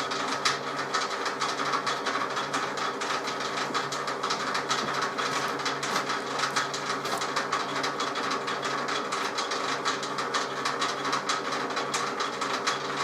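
Metal-turning lathe running under power while facing a workpiece to length: a steady gear whine under a dense, rapid clatter.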